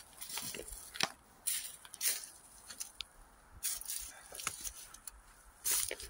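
Footsteps crunching and crackling through dry leaf litter and twigs on a woodland floor, in an uneven walking rhythm.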